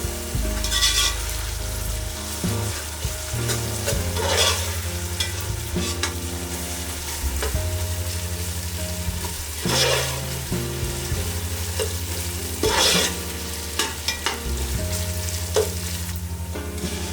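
Food frying in a pan with a steady sizzle while it is stirred. A spoon scrapes the pan in several louder strokes, about a second in, at four seconds, near ten and near thirteen seconds.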